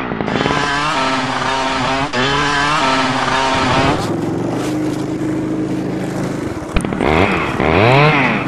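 Motorcycle engine revving, its pitch swelling up and falling back several times, running at a steady pitch for a few seconds in the middle, then revving up and down twice more near the end.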